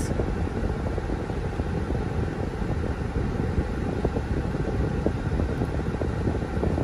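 Steady road and engine noise inside a moving car's cabin, mostly a low rumble.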